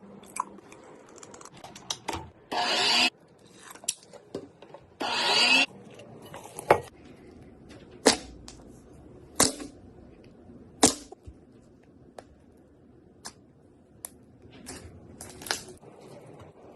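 Slime being handled and squished: scattered sharp pops and clicks, with two louder half-second bursts of noise about two and a half and five seconds in.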